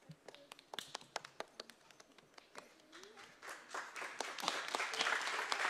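Audience applause: a few scattered claps at first, swelling into full clapping after about three and a half seconds.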